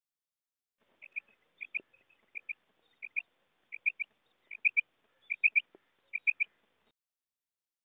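Female common quail calling: quick groups of short, high notes, pairs at first and then triplets, repeated roughly every 0.7 seconds and growing louder. Such calls are played to lure male quail.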